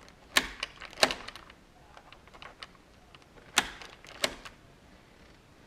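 August Smart Lock being turned by hand off the door, its mechanism giving sharp clicks: two pairs, one early and one past three and a half seconds in.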